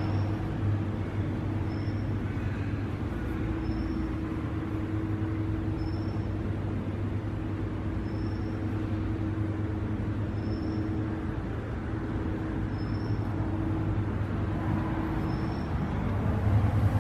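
Stainless steel industrial shredder and bone breaker running empty: a steady motor hum with a faint high chirp repeating about once a second. It grows louder near the end.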